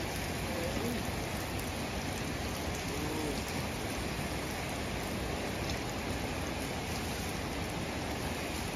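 Steady rain falling, an even hiss with no break. A faint voice is heard briefly about three seconds in.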